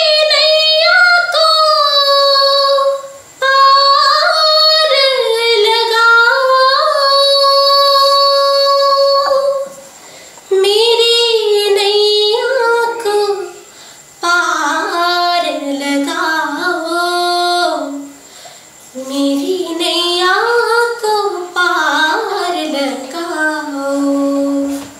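A woman singing a semi-classical Indian song in a trained Hindustani style, with long held notes and ornamented turns between them. She breaks off briefly for breath a few times, and her line sits lower in the second half.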